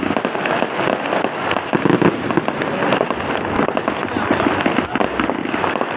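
Fireworks going off in a dense, continuous run of sharp pops and crackles, with no break.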